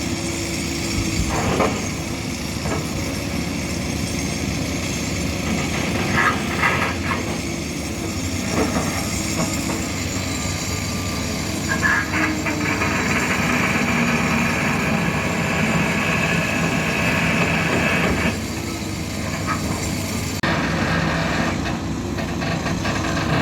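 Large hydraulic excavators' diesel engines running under load while digging, with a few sharp knocks. For several seconds in the middle a higher-pitched strain rises over the engine note.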